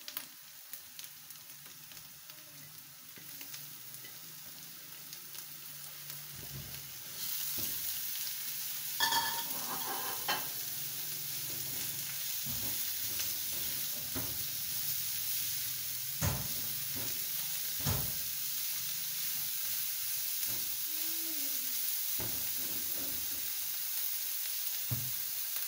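Chopped carrots and capsicum sizzling in hot oil in a nonstick frying pan as they are sautéed and stirred with a silicone spatula, which knocks and scrapes against the pan now and then. The sizzle gets louder about seven seconds in.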